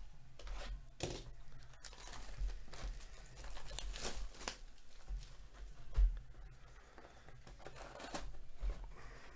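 Plastic shrink wrap being torn and crinkled off a sealed cardboard trading-card hobby box, with a series of sharp crackles and the box knocking as it is handled. The loudest sound is a thump about six seconds in.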